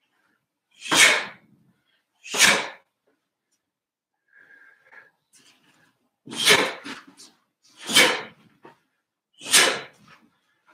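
Sharp, forced exhalations of a Taekwon-Do practitioner working through a pattern, one hissing breath with each technique. There are two about a second and a half apart, a pause, then three more at the same spacing.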